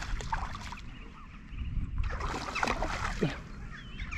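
A released trout splashing at the water's surface as it darts away, a short burst of splashing near the start, with more splashy noise about two seconds in.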